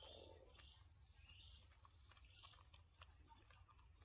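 Near silence, with faint high chirps about once a second and scattered light clicks.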